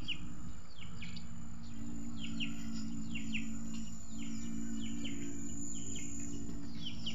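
Rural garden ambience: a bird giving short, downward-sliding chirps over and over, about two a second, over a steady high insect whine and a faint low hum.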